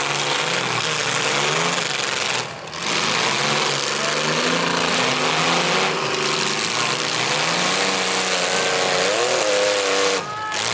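Several demolition derby car engines revving together, their pitches rising and falling over a dense wash of noise, with one revving up sharply near the end.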